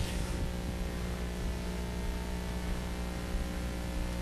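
Steady electrical hum with a layer of hiss: room tone, with no other sound standing out.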